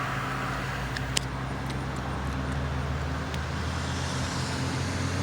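Steady low rumble of motor traffic, with one sharp click about a second in.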